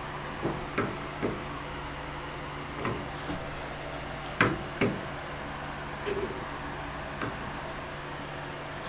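Scattered metal clicks and knocks from a new Grizzly metal lathe's chuck and headstock being handled by hand. A steady fan hum runs underneath. The loudest pair of knocks comes about halfway through.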